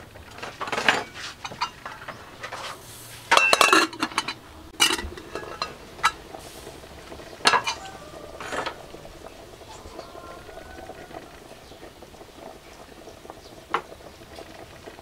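Metal ladle clinking and scraping against the side of a metal cooking pot while stirring soup, several sharp knocks over the first half, then a steady sound of the soup boiling with one more clink near the end.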